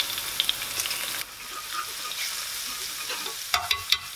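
Freshly pressed garlic sizzling and crackling in medium-hot olive oil in a small frying pan with the heat off. The sizzle drops quieter about a second in, and a few sharp clicks come near the end.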